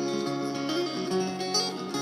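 Background music with a plucked-string melody.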